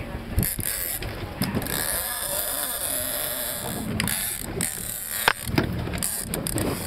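Big-game fishing reel's drag clicking steadily as a hooked fish pulls line off, with a few sharper knocks near the end.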